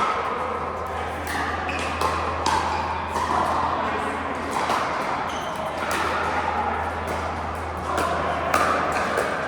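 Pickleball paddles hitting a plastic ball: sharp pops at an irregular rally pace, over background voices.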